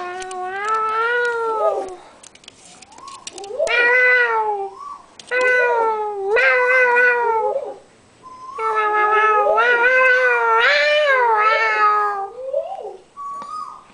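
Long, drawn-out meows in a back-and-forth series, from a cat and a person imitating cat calls. In the middle two meows overlap for a few seconds.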